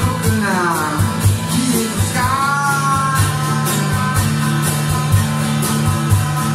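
Live band music: a man singing over a strummed acoustic guitar and a steady drum beat. About two seconds in he holds one long note.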